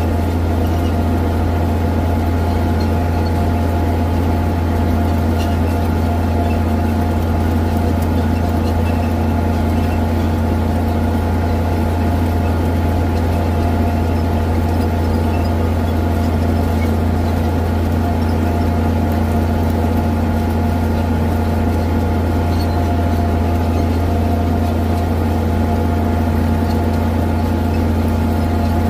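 Farm tractor's diesel engine running at a steady speed as it pulls a corn planter across the field, heard from the hood right beside the exhaust stack. It is a constant low hum with a few steady tones above it, unchanging throughout.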